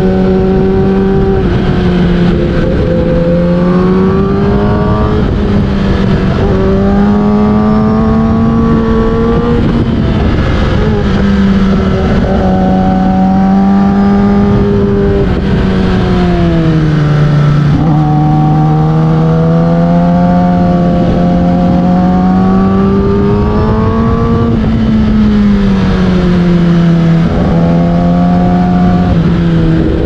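Kawasaki ZX-10R inline-four with an Akrapovic full exhaust, heard from onboard while riding hard. The engine note climbs slowly under throttle, then drops sharply several times as the revs fall.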